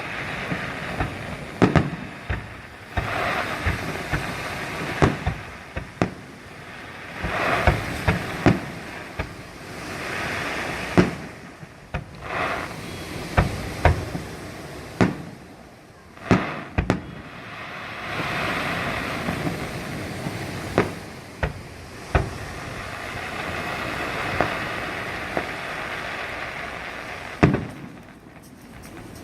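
Fireworks display: aerial shells bursting with sharp bangs every second or so, some in quick clusters, over swelling stretches of crackle between them.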